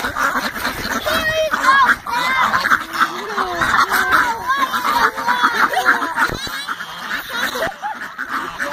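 A large flock of domestic ducks and geese calling over one another, many quacks and honks overlapping without a break. The birds are hungry and crowding in to be fed.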